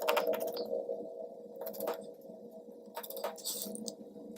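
Light clicks and taps from handling and flipping an iPhone 6 replacement screen assembly on the work surface, a few at a time, over a steady low hum.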